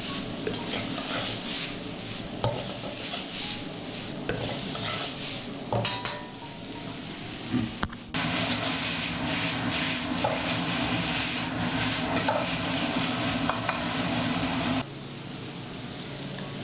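Green beans and minced meat sizzling in a wok while a metal spatula stirs and scrapes them, with frequent clicks of metal on the pan. The sizzle gets louder about halfway through and drops back near the end.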